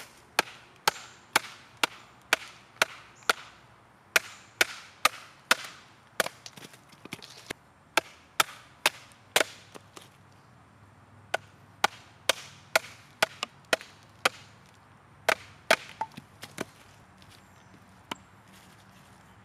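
A Survive! GSO 4.7 fixed-blade knife chopping down into a stick of wood standing on a stump, splitting it. Sharp wooden chops come in runs at about two a second with short pauses between, and stop about three seconds before the end.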